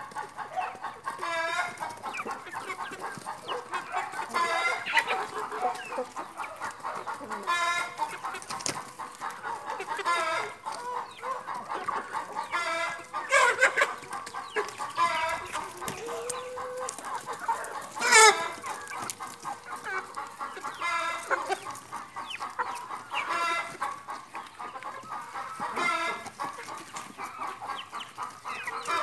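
A flock of domestic hens clucking steadily as they feed, with a few louder, sharper calls standing out about halfway through and a few seconds later.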